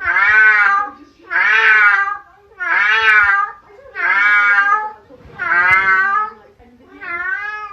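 A cat meowing over and over: six long, drawn-out meows at an even pace, each rising and falling in pitch, the last one quieter.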